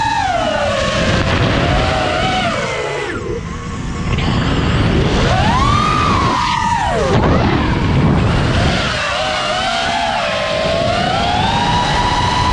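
FPV quadcopter's electric motors whining, the pitch gliding up and down with the throttle, over a rushing noise of wind on the onboard camera's microphone. The whine drops away about three seconds in, then climbs sharply to its highest near the middle before falling and rising again.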